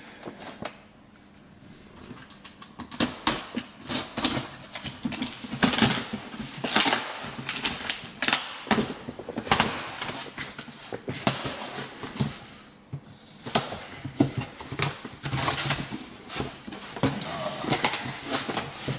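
Hands rummaging in a cardboard shipping box and lifting packed items out: a run of rustling and scraping with irregular knocks and clicks. There are short lulls about a second in and around thirteen seconds in.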